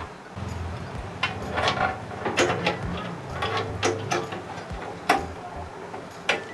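Screwdriver driving in the screw that fastens a graphics card's metal bracket to a PC case: a run of irregular sharp metal clicks and scrapes.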